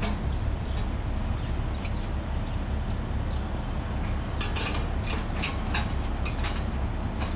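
Sharp little clicks and clinks of gloved hand work at a battery box, bunched from about four and a half seconds in, over a steady low rumble.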